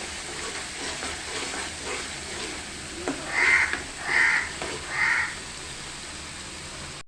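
A crow cawing three times, about three quarters of a second apart, over the low sizzle of spice paste frying in oil.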